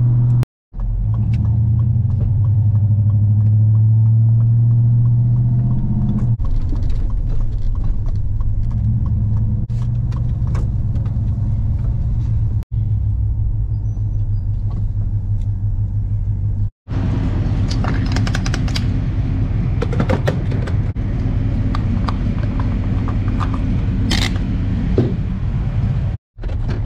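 Chevrolet Suburban driving, heard from inside the cabin: a steady low engine drone with road noise. It gets rougher and hissier with scattered rattles about two-thirds of the way in, and drops out abruptly for a moment three times.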